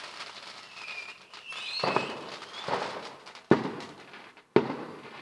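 Fireworks exploding: four bangs roughly a second apart in the second half, the last two the sharpest.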